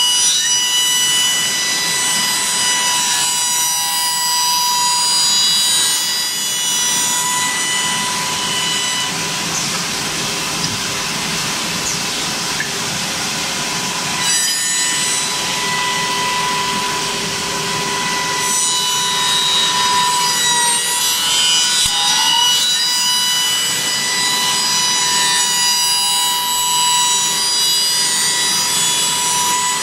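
Wood copy shaper's high-speed spindle cutter running with a steady high whine while it cuts the outline of a stack of wooden brush blocks, the hiss of the cut carrying throughout.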